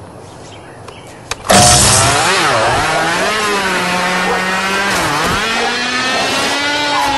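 A small engine that starts suddenly after a click and runs with a buzzing note whose pitch sags and recovers twice.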